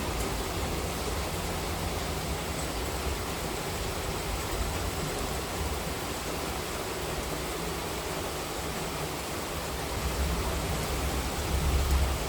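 Heavy monsoon rain falling steadily, a dense even hiss, with a deep low rumble underneath that swells briefly near the end.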